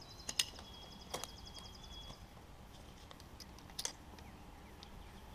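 A bird's rapid high trill that stops about two seconds in, over faint outdoor quiet, with a few sharp clicks, the loudest about half a second in.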